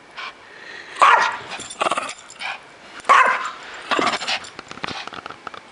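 Pomeranian barking: about five short, sharp barks, the loudest about one and three seconds in.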